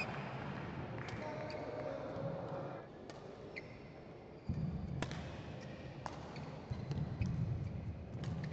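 Badminton racket strikes on a shuttlecock, with footsteps and short shoe squeaks on the court mat, as sharp scattered clicks over the low murmur of an indoor sports hall.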